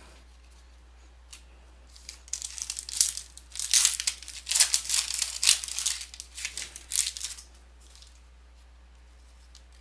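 Wrapper of a basketball trading-card pack being torn open and crinkled, a run of crackling and ripping lasting about five seconds, starting about two seconds in.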